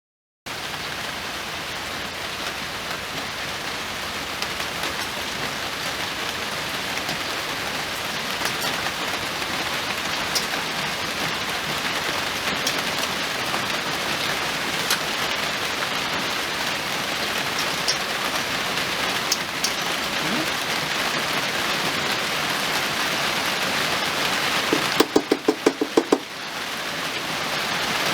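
Steady rain-like hiss with scattered faint ticks, then a quick run of about six sharp clicks near the end.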